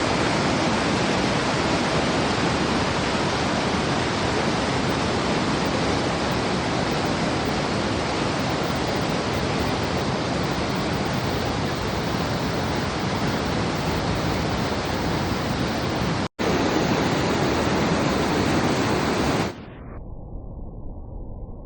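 Mountain river rushing below a waterfall, a loud steady roar of water, cut by a split-second dropout about 16 seconds in. Near the end it switches abruptly to a quieter, dull low rumble.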